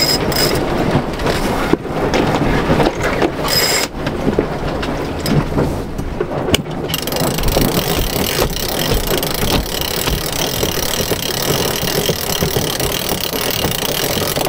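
Wind buffeting the microphone and water rushing along a sailboat's hull as the boat tacks, with a few knocks from gear on deck.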